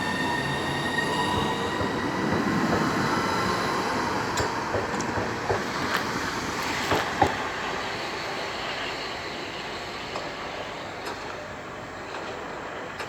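Class 377 Electrostar electric multiple unit pulling out. Its traction motors whine, rising in pitch over the first couple of seconds. Then the wheels click over rail joints as the train fades away.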